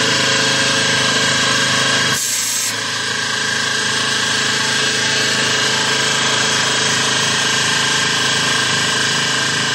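Small battery-powered electric air compressor inside the boat's prop boiler, running steadily as it builds up air pressure for the steam whistle.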